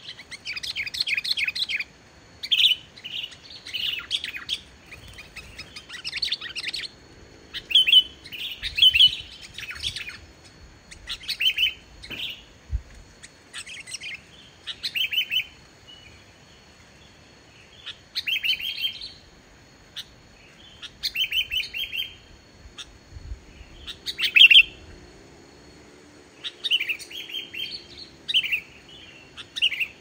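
Sooty-headed bulbul (kutilang) singing: short, bubbly phrases of chirps and whistles, repeated every second or two.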